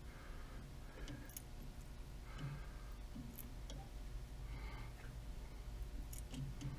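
Faint, irregular clicks and short scrapes of a tap being turned by hand in a tap wrench, cutting threads in a drilled hole in metal.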